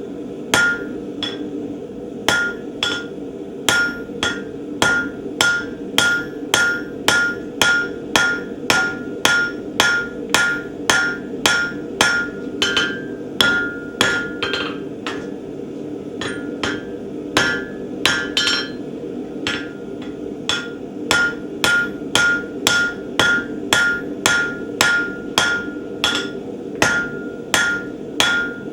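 Hammer blows forging a hot steel bar on an anvil, about two a second, each with a bright metallic ring. The strikes thin out briefly about halfway. A steady hum runs underneath.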